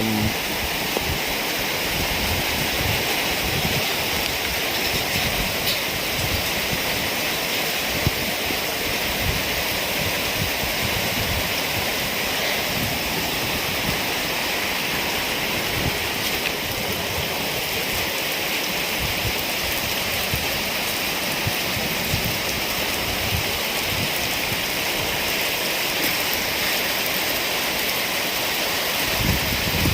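Heavy rain falling steadily in a rainstorm, a constant even hiss.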